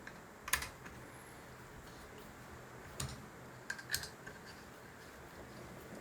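A few light, sharp clicks and taps from the polishing stone and metal parts of a guided knife-sharpening system knocking against the knife blade and clamp, spaced irregularly over a faint steady hum.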